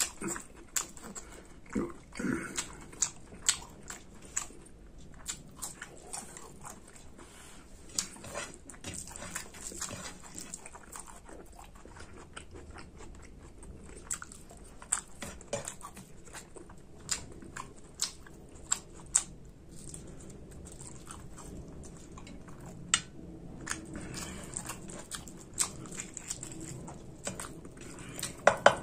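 Close-up eating sounds of a man chewing pork curry and rice: wet chewing with many sharp lip smacks and mouth clicks throughout.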